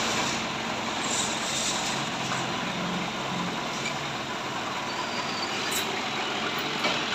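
Mitsubishi FD20 diesel forklift's engine running steadily.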